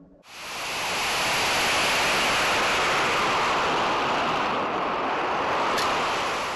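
Air rushing over a high-power rocket's onboard camera as it coasts to apogee: a steady rushing noise that starts suddenly and dies away near the end.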